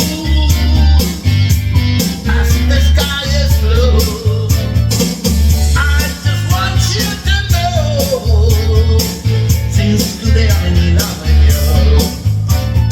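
Blues-rock song with guitar, a steady bass pulse and a melodic line.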